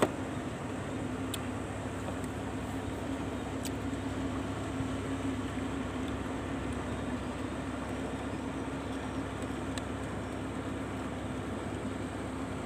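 A steady engine drone holding one low pitch, with a few faint clicks.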